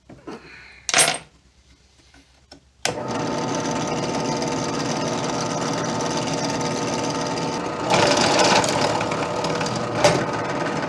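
A sharp click about a second in, then an electric drill starts about three seconds in and runs steadily, drilling out a bolt hole in a copper cylinder gasket. It grows louder and rougher for a moment about eight seconds in as the bit bites into the copper.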